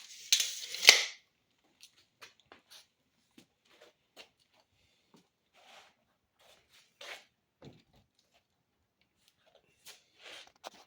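Steel tape measure blade retracting with a rushing zip that ends in a sharp snap about a second in. Scattered light clicks and rustles of handling follow.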